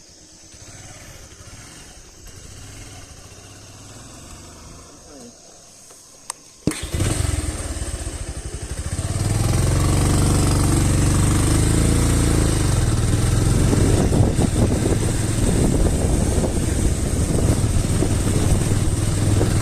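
Quiet for the first six seconds or so, then a motorcycle engine comes in suddenly, rises about two seconds later and keeps running loud and steady.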